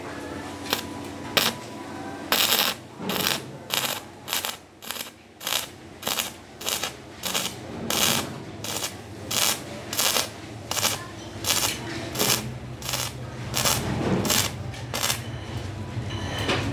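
Stick (SMAW) welding arc on thin 1.4 mm stainless steel hollow section with a 308 stainless electrode. Two short scratches as the arc is struck, then the arc crackles in short bursts, about three every two seconds, as it is struck and broken over and over. It stops near the end.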